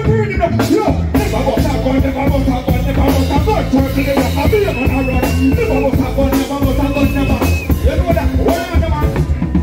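Loud live reggae band music through a PA system, with a heavy bass line and a steady drum beat.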